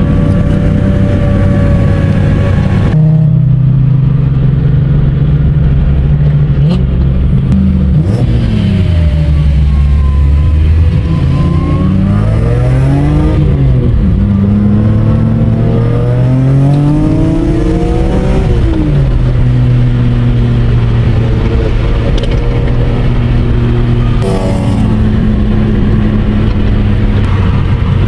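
BMW M3 race car engine running loud and steady. Its pitch shifts abruptly a few times, and the revs rise and fall twice in the middle.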